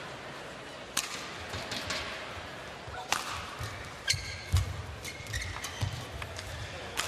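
Badminton rally: sharp cracks of rackets striking the shuttlecock every one to two seconds, the first about a second in and the last near the end, with a brief shoe squeak and dull thuds of footwork on the court between shots.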